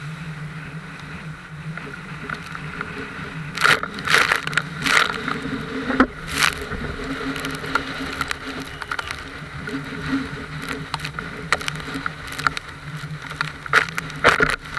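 A tow boat's motor drones steadily while the inflatable banana boat rides fast over the wake, with rushing water and bursts of splashing spray, loudest around four to six seconds in and again near the end.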